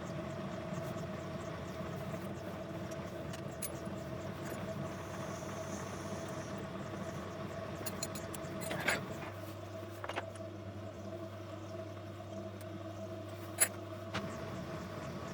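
Steady motor hum with a few light metallic clicks, a louder click about nine seconds in and a sharp one near the end; a deeper hum joins for about five seconds in the second half.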